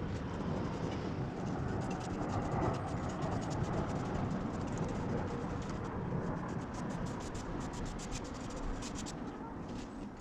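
Steady scratchy rubbing, like scraping or scrubbing a surface by hand, with a quick run of small ticks and clicks in the second half.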